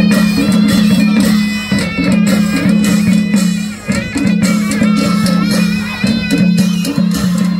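Live Lakhe dance music: Newari dhime drums and cymbals beating a rhythm over a loud, steady low tone that breaks off and resumes every second or so.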